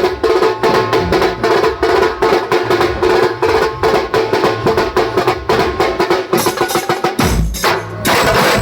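Band music: rapid drum strokes under a held melody note, with a short break about seven seconds in before the full band comes back in.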